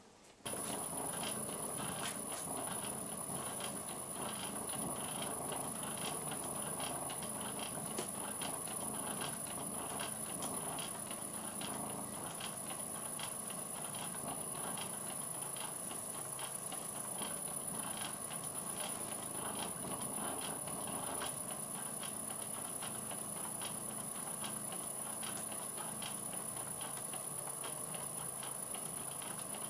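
Old Karger metal lathe running under its electric motor, the drive belt turning the stepped cone pulley. It makes a steady mechanical whir with a thin high whine and a rapid run of light clicks. A hand presses down on the running belt to damp the vibration behind the spindle chatter.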